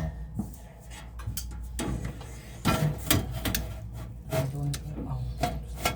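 Scattered clicks and knocks of things being handled, with brief low voices in between and a steady low hum underneath.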